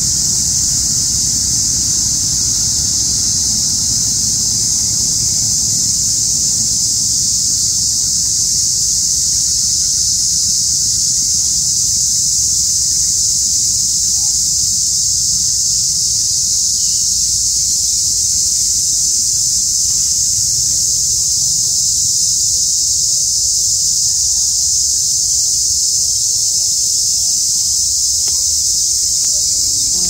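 A steady, high-pitched drone from a loud chorus of insects, unbroken throughout, with wind rumbling low on the microphone, more strongly in the first few seconds.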